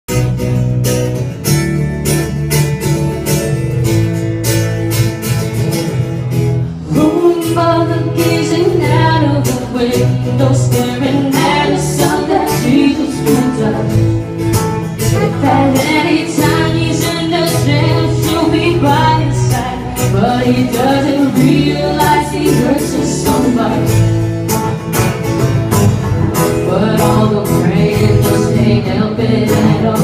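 Live band music with guitar: a slow, steady groove over a repeating bass line, with a melody line entering about seven seconds in.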